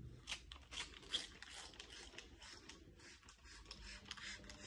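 Faint rustling and light scraping of things being handled, in short irregular strokes.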